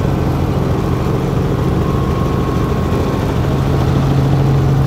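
Helicopter engine and rotor noise heard inside the cabin: a steady, loud drone with a strong low hum, growing slightly louder near the end.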